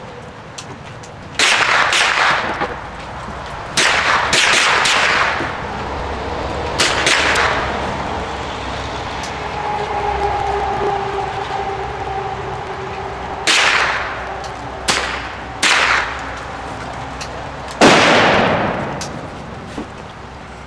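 Gunshots: about ten single shots fired at uneven intervals, each a sharp crack with a short ringing tail, the last one near the end the loudest.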